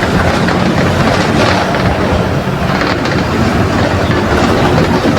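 Mercedes-Benz OF 1721 BlueTec 5 bus diesel engine running steadily under way, with a loud low rumble, road noise and light rattling from the bus body.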